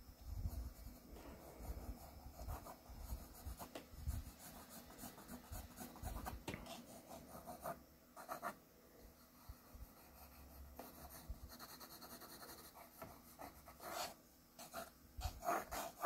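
Faint pencil scratching across drawing paper in short, irregular strokes, some louder than others, as lines are sketched in.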